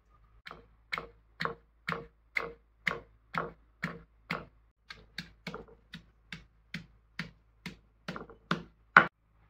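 Stone pestle pounding green chillies in a stone mortar: a steady run of dull knocks, about two a second, with the last one the loudest.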